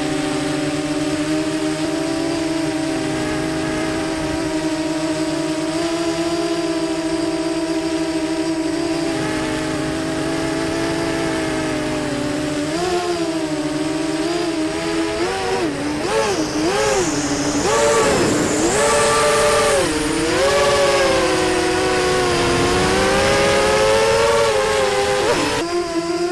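Mini FPV quadcopter's SunnySky 2204 2300kv brushless motors and 5-inch propellers whining, a steady hum that about halfway through swings rapidly up and down in pitch as the throttle is worked, with a rush of air.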